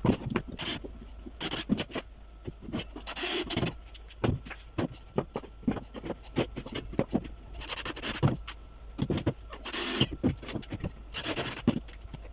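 Pallet-wood slats being handled and worked: rapid, irregular knocks and clicks of wood on wood, with several short bursts of scraping or rasping.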